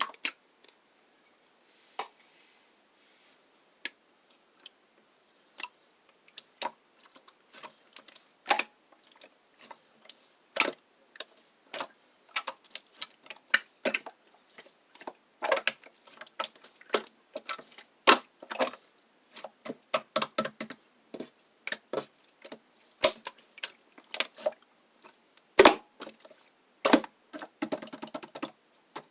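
Slime being squeezed and worked, giving off sharp clicks and pops: scattered single clicks at first, coming thicker and faster after about six seconds, with a dense run of crackling near the end.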